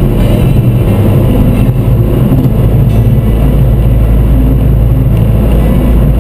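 Mini Cooper S on the move: steady, loud low rumble of engine and road noise.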